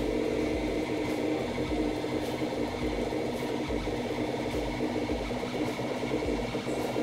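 Ultimaker 2 3D printer's stepper motor running with a steady whine of several stacked tones, driving the build plate up toward the nozzle during bed levelling.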